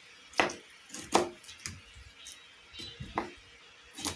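Kitchen knife chopping food on a cutting board: a few sharp, irregularly spaced knocks of the blade meeting the board.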